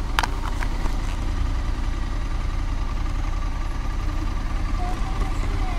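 Honda Africa Twin's parallel-twin engine idling steadily with the bike stopped, with one sharp click just after the start.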